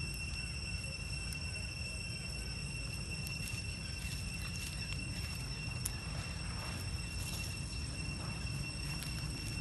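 Steady high-pitched insect drone, with faint crackling of dry leaves as a macaque walks up close over them in the middle stretch, over a low steady rumble.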